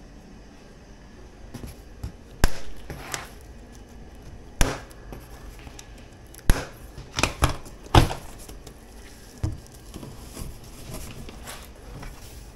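Cutters snipping through the plastic strapping bands around a cardboard box, giving a series of sharp snaps, several close together about halfway through. Cardboard rustles and scrapes between the cuts.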